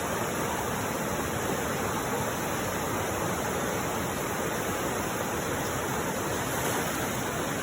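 Steady rush of river water, an even noise without breaks.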